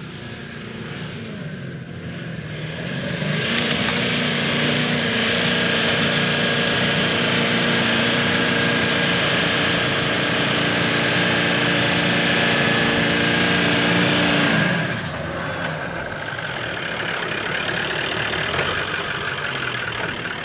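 Toyota LandCruiser 70-series engine working hard in low gear up a soft sand track. The revs rise about three seconds in and hold steady and loud as it comes on, then drop away about fifteen seconds in, leaving quieter engine and tyre noise.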